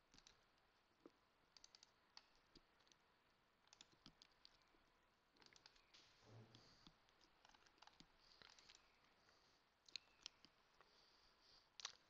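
Near silence with faint, scattered computer mouse clicks, several in quick succession.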